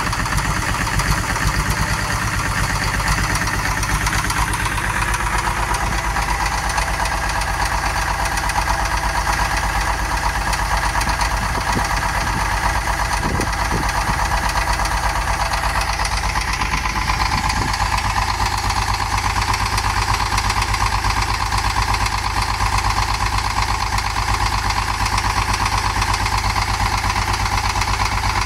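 International UD-236 diesel engine in a motor grader idling steadily just after start-up, its exhaust stack still smoking.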